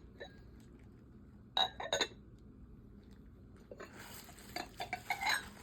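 Ceramic cat bowls clinking together, a quick run of sharp ringing chinks about one and a half seconds in, followed near the end by lighter clattering and rustling as they are handled.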